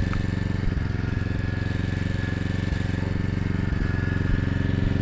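An engine idling steadily with a rapid, even pulse, with a thin steady whine above it.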